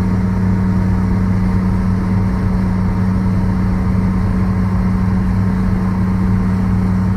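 Motorboat engine running steadily while the boat is under way, a constant low drone at even pitch.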